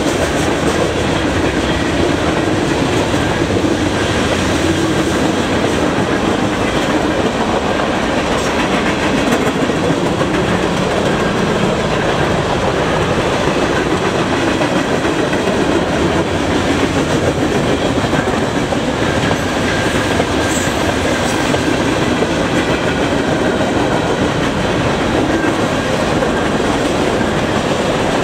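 Freight train cars rolling past at speed, with a loud, steady noise of steel wheels running on the rails.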